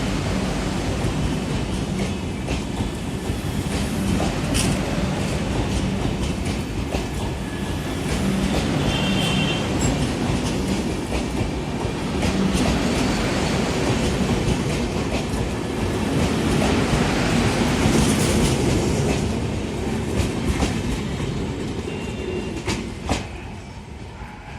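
Passenger train coaches rolling along the track, wheels clattering over the rail joints, with a short high wheel squeal about nine seconds in. The clatter dies away over the last few seconds.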